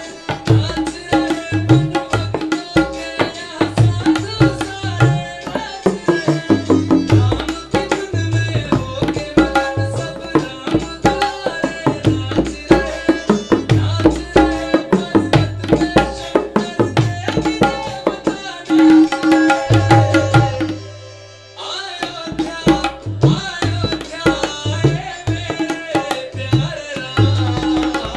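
Tabla played with both hands: rapid strokes ring at a steady pitch on the dayan, under bass strokes on the bayan that slide upward in pitch. The playing eases off briefly about three-quarters of the way through, then picks up again.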